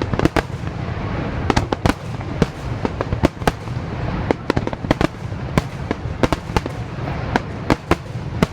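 Fireworks display: a rapid, irregular barrage of shells bursting, several sharp bangs a second over a continuous low rumble.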